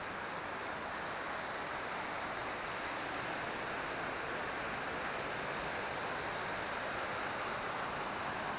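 Steady rush of water from a mountain stream and waterfall, growing slightly louder.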